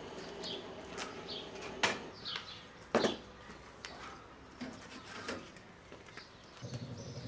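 Small metal fire door of a rusty wood-burning stove clanking as it is opened, with two sharp metallic knocks about two and three seconds in. Birds chirp repeatedly in the background.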